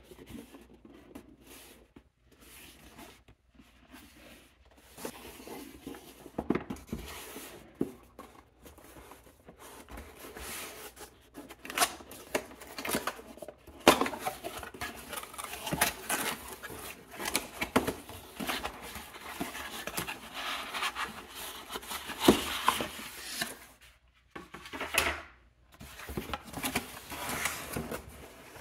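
Corrugated cardboard laptop box being handled and opened by hand: irregular rustling and scraping of cardboard sliding against cardboard, with many sharp taps and clicks from flaps and edges.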